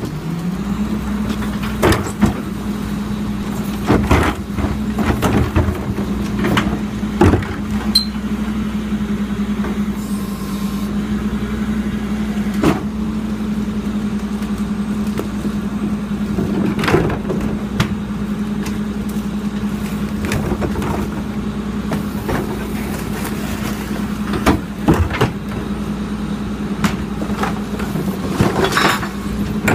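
Diesel engine of a Crane Carrier low-entry garbage truck running steadily, its speed rising about a second in and then holding. Over it come repeated clanks and bangs as garbage carts are tipped and knocked against the lip of the Leach rear-loader hopper.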